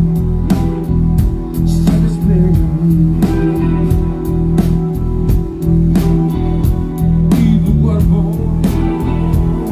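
Live band playing a song: electric guitar, electric upright bass and drum kit, with steady drum hits over sustained guitar and bass notes and a few sliding notes.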